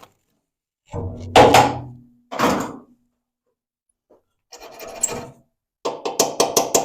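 Knocks and scraping from hand work on the car's body panel, ending in a quick run of about six sharp strikes.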